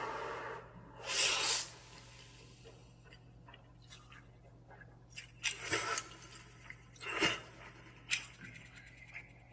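A man slurping instant noodles: a few short, noisy slurps, the loudest about a second in and others around five and seven seconds in, with small mouth clicks between.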